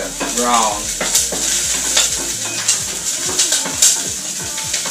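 Chopped garlic sizzling in hot vegetable oil in a pot on an electric stove as it browns, stirred with a big spoon that scrapes and knocks against the pot again and again.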